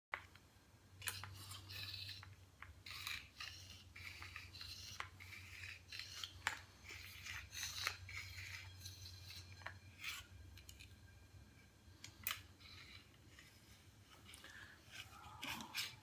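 Faint cloth rustling and scraping with scattered light clicks, from a fabric face mask being pulled on and adjusted by hand close to the microphone. A low steady hum runs underneath for most of it.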